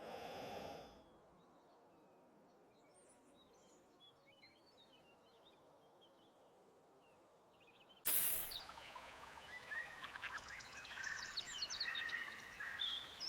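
Forest ambience of birds chirping. A short pitched sound comes in the first second, then the chirps are faint and sparse. About eight seconds in, a sudden loud burst opens a busier, louder run of chirps that carries on.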